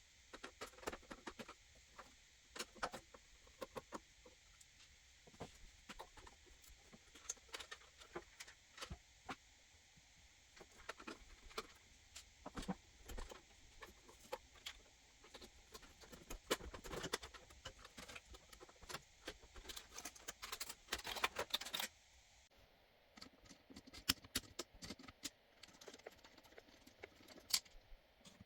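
Light clicks, taps and small rattles of hardware being handled during a PC cooler install, busiest about three-quarters of the way through.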